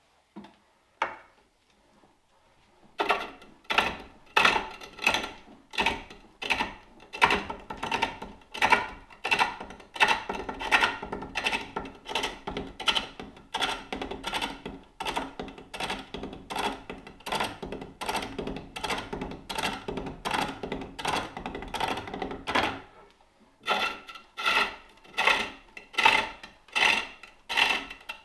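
Spring pole lathe turning a wooden bowl: the turning tool cuts into the spinning blank in regular strokes, about one and a half to two a second, one cut on each treadle down-stroke. The cutting starts about three seconds in and stops briefly near the end before going on.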